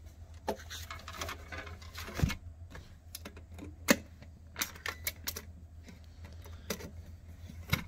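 Irregular sharp clicks and knocks from a V-Line 279-S compact steel pistol safe as its lid is shut and the box is handled, the loudest knocks about two and four seconds in. The holstered pistol inside is held firm by the foam, so nothing rattles around inside.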